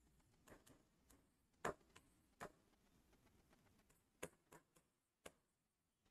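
Near silence, broken by several faint, sharp ticks at irregular intervals: a marker tip tapping and clicking against the writing board as words and question marks are written.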